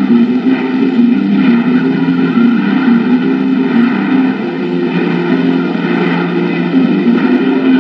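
A loud, steady drone from an old film soundtrack, with several low tones that step up and down in pitch.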